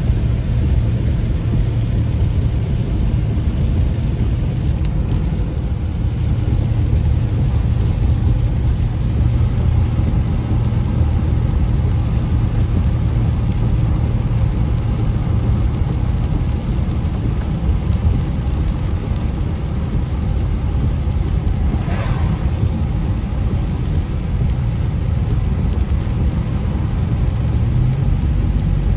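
Steady road noise inside a moving car on wet pavement: a low engine and tyre rumble with air rushing in through a partly open window. A brief swish comes about three-quarters of the way through.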